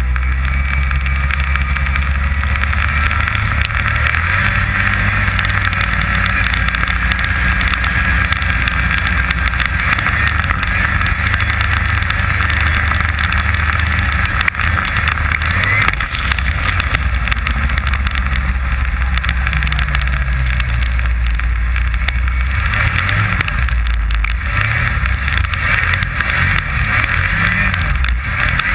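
Snowmobile engine running at speed, its note shifting up and down, picked up by a camera mounted on the sled.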